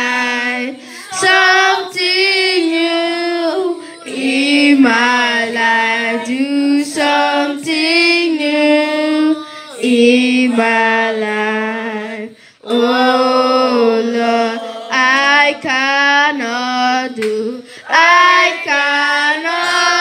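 A girl singing a worship song into a handheld microphone in long phrases with held, wavering notes, with other children's voices singing along behind her.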